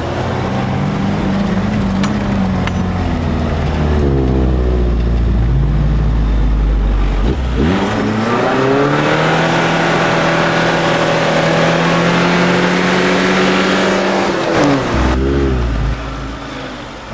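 An off-road 4x4's engine, heard from inside the cab, working hard through soft sand. The revs dip about halfway in, then climb and are held high for several seconds before falling away near the end.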